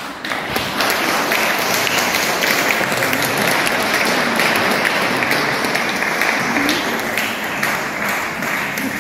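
Congregation applauding: many hands clapping in a dense, steady wash that eases a little near the end.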